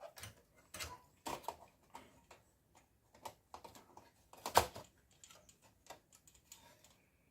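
Irregular light clicks and knocks of a drive and its cables being handled and fitted inside a desktop computer case, with one sharper knock about four and a half seconds in.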